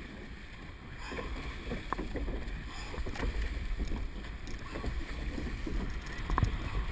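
Wind buffeting the microphone and water rushing around a surf boat as its crew rows through the surf, with a few faint distant calls.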